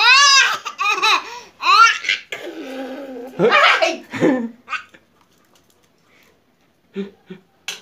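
Laughter in quick repeated bursts through the first two seconds, then more laughing and babbling from about two and a half to four and a half seconds in; it falls almost quiet after that, with two brief sounds near the end.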